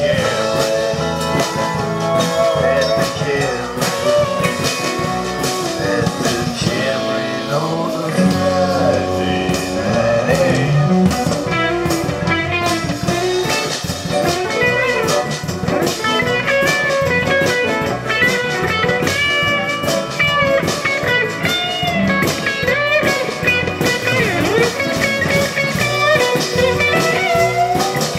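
Live blues-rock band playing an instrumental passage, with drums under a lead on hollow-body electric guitar whose notes bend and waver.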